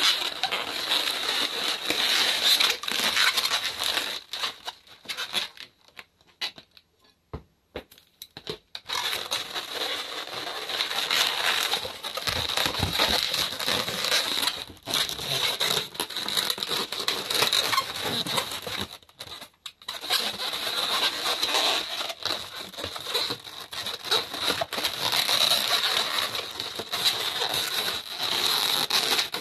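Long latex modelling balloons squeaking and rubbing against each other and the hands as they are twisted and fitted together, in stretches broken by short pauses about a quarter of the way in and again past the middle.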